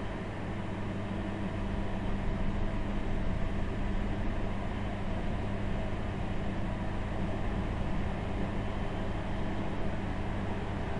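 Steady rumble and hum of a moving passenger train heard from inside the carriage, its wheels running on the rails; it grows a little louder about two seconds in.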